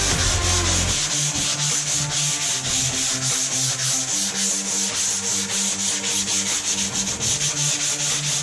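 Small electric sander with 150-grit paper running on the truck bed of a 2013 Honda Ridgeline, a steady high hiss with a fast even pulse, scuffing the surface before bed liner goes on.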